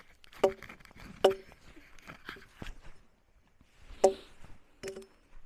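Axe chopping wood: about six sharp, knocking strikes, each ringing briefly, with a pause of about a second in the middle.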